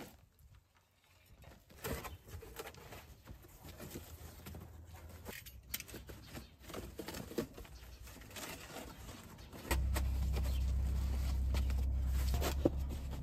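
Cardboard sheets being laid and shifted by hand inside a timber frame, with light rustles and small knocks. About ten seconds in, a steady low hum starts and becomes the loudest sound.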